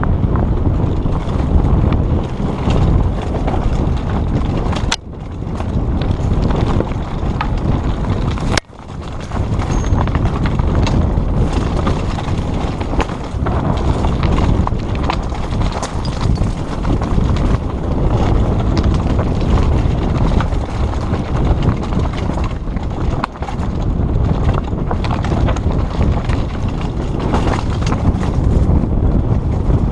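Downhill mountain bike descent heard from a helmet-mounted camera: wind on the microphone and a continuous clatter of tyres and bike over a rocky, gravelly trail, full of small knocks. The sound drops away suddenly twice, about five and eight and a half seconds in, then comes back.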